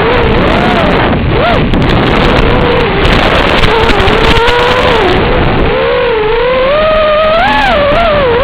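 Lumenier QAV-R220 racing quadcopter's brushless motors and propellers whining, the pitch rising and falling constantly with throttle changes, under heavy wind noise.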